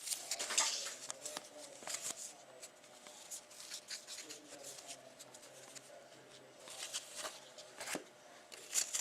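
Trading cards and a pack wrapper being handled: faint rustling with scattered light clicks and slides of card stock. The strongest rustles come near the start and again about seven seconds in.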